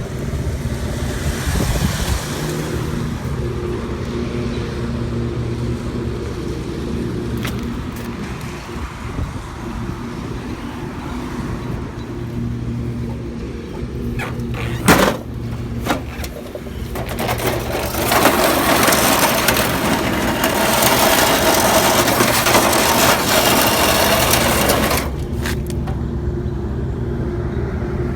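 A vehicle engine idles steadily with a low hum. A sharp click sounds about halfway through, and a loud hiss starts a few seconds later, runs for about seven seconds and stops abruptly.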